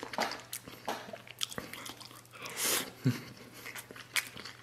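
Close-miked mouth sounds of a man chewing soft braised pig-head meat and rice: wet smacks and small clicks, with a short hiss near the middle.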